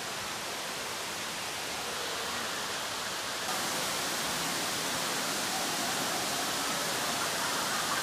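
Waterfall pouring over a rock ledge: a steady rush of falling water that becomes suddenly louder and brighter about three and a half seconds in.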